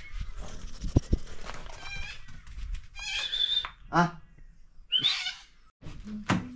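Sheep bleating: three short calls about three, four and five seconds in, the middle one pitched and rising slightly. A sharp knock near the end.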